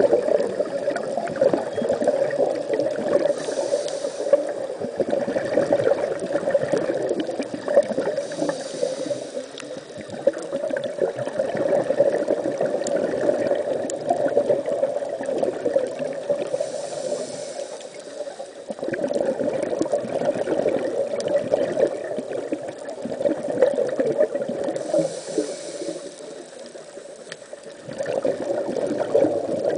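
Scuba diver's breathing heard underwater: a short regulator hiss on each inhale, about every eight seconds, between longer stretches of bubbling and gurgling from the exhalations.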